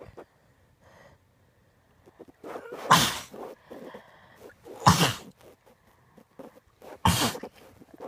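A person sneezing three times in a row, about two seconds apart, in an uncontrollable sneezing fit. Each loud, sudden sneeze comes after a short in-breath.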